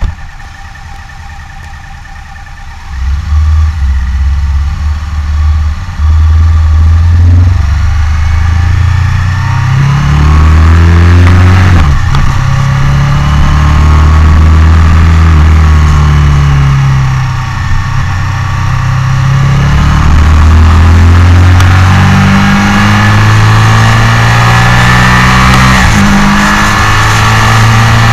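Motorcycle engine heard from the bike's own onboard camera: running quietly at first, then accelerating hard from about three seconds in. Its pitch climbs through each gear, with several upshifts.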